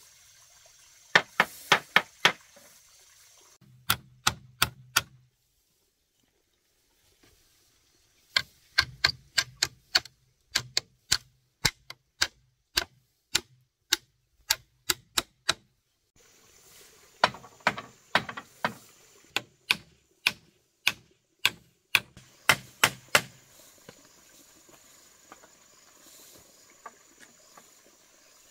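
Hammering: runs of sharp, ringing strikes, about two to three a second, with pauses between the runs.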